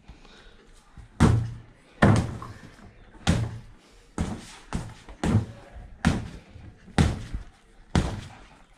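Boxing gloves punching a freestanding punching bag: a string of about nine thuds, roughly one a second.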